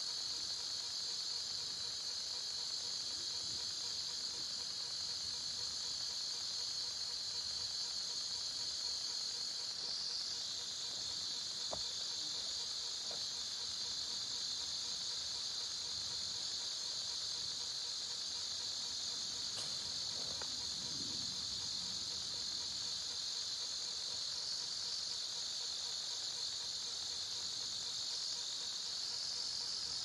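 Steady high-pitched insect chorus, one continuous drone without pauses, with a few faint light clicks near the middle.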